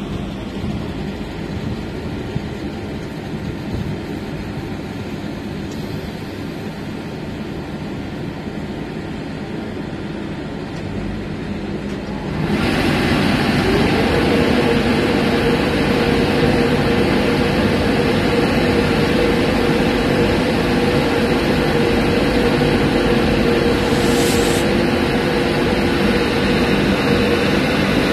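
Class 91 electric locomotive standing with a steady electrical hum; about twelve seconds in it abruptly gets much louder as its cooling blowers start up, settling into a steady whining drone.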